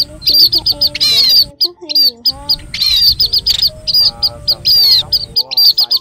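Munias (Vietnamese "chim ri", the "sắc dần" call sold as a lure for net trapping) calling in quick, repeated series of short, high chirps, one after another almost without pause.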